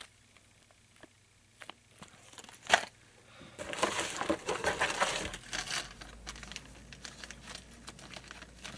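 Small plastic bags of metal jig heads and weights being handled: a few light clicks, a sharp clink about three seconds in, then a couple of seconds of plastic bag rustling and scattered small ticks.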